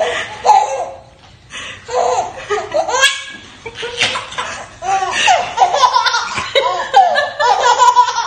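A baby laughing in repeated bouts of high-pitched belly laughs, with short pauses between them.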